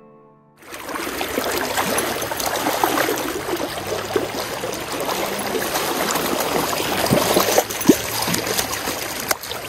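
Stream water rushing and gurgling close to the microphone, with a sharp splash near the end as a fish thrashes at the surface.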